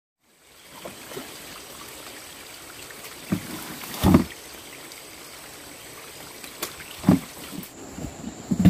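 Footsteps and rustling through dry bamboo leaves and undergrowth, with a few sharper crunches and thumps, the loudest about four seconds in, over a steady background hiss.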